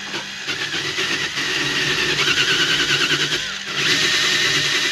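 Cordless drill spinning a wire wheel brush against a corroded metal hull fitting, scouring out around its corner screws. A steady motor whine runs under a scratchy brushing noise, easing off briefly about three and a half seconds in, then picking up again.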